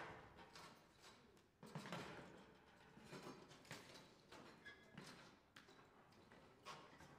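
Faint, scattered knocks and clatter of metal music stands being carried, set down and adjusted, with footsteps on a wooden stage floor: about five separate knocks.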